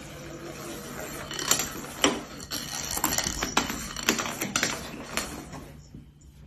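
A cat playing with a wand toy on a laminate floor: a run of irregular sharp clicks, knocks and scrapes as the toy's wooden stick and the cat's paws hit and drag on the floor, dying away about a second before the end.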